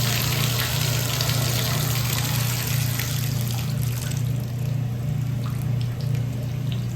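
Water running with a steady low hum underneath; the rush of water dies down about halfway through.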